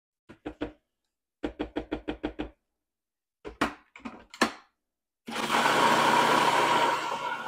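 A silicone spatula knocks and scrapes against the food processor's plastic bowl in three quick bursts of taps. About five seconds in, the food processor's motor starts and runs loud and steady, blending the pesto.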